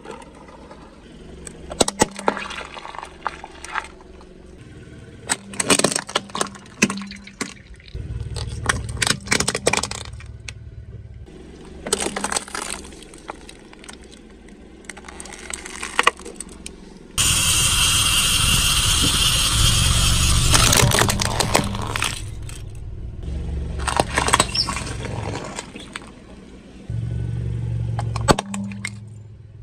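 Car tyre rolling slowly over small toys and soft objects on asphalt, crushing them one after another with clusters of sharp cracks, crunches and pops over a low rumble of the tyre and car. A bit over halfway through comes a loud, steady hiss-like crackle for about three seconds that starts and stops abruptly.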